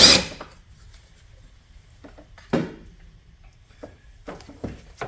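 Hand tools working on metal fittings under the hood: a loud clatter at the start, a knock about two and a half seconds in, and a few light clicks near the end, from loosening a 5/16 fastener on the breather tube.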